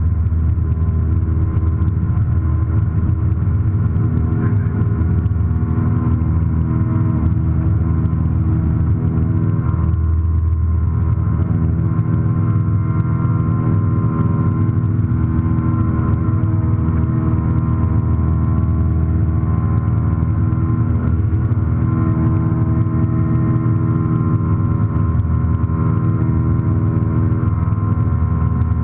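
Single-engine light aircraft's engine and propeller at takeoff power, heard from inside the cockpit: a loud, steady drone that holds the same pitch through the takeoff roll and climb-out.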